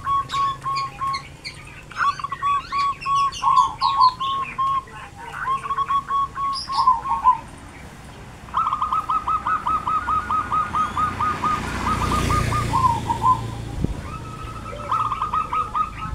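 Birds singing, with repeated runs of quick, even notes at one pitch and higher chirps of other birds over them. A motorbike passes about twelve seconds in.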